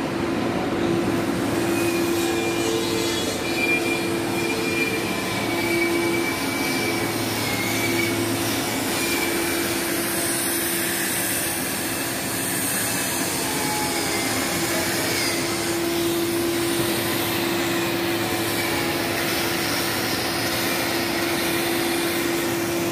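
Steady machinery noise in a metal fabrication shop, an even rushing sound with a constant mid-pitched hum that runs unbroken.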